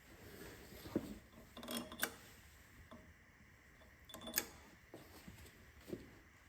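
Scattered metallic clinks and taps as cylinder head bolts and hand tools are handled on the engine, a handful of sharp clinks a second or two apart, some ringing briefly like metal.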